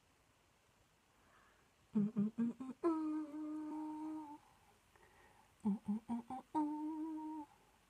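A woman humming two short phrases, each a few quick notes followed by a longer held note.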